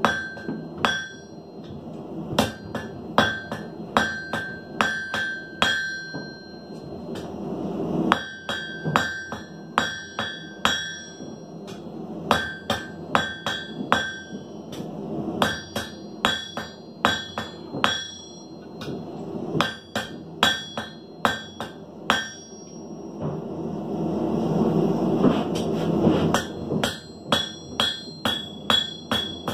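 A hand hammer is striking red-hot steel on an anvil in runs of several blows at about two to three a second, with short pauses between the runs. Each blow leaves a bright metallic ring from the anvil.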